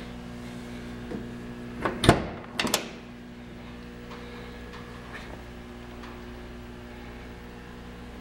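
Car door being opened: a quick run of sharp clicks and clunks from the door handle and latch, the loudest about two seconds in, over a steady low hum.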